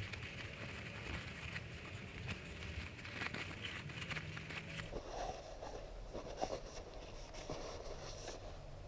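Faint rustling and rubbing of a paper towel as a motorcycle fork damper rod is wiped clean, with small scattered ticks.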